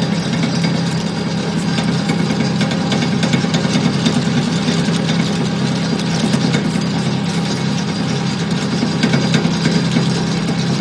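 Puffed-snack food extruder running: a steady low motor hum with a constant fine rattle of ticks.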